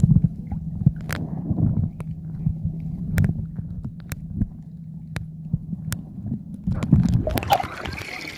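Muffled underwater sound through a submerged camera: a low steady hum and rumble with scattered sharp clicks. About seven seconds in, the sound turns louder and splashy as the camera comes up through the water surface.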